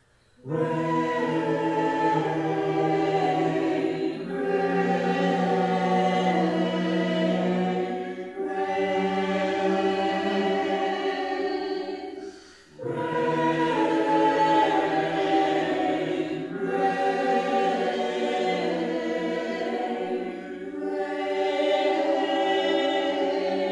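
Mixed college choir singing slow, sustained chords as a virtual choir of separately recorded voices. The singing starts about half a second in and moves in phrases of about four seconds with short breaks between them.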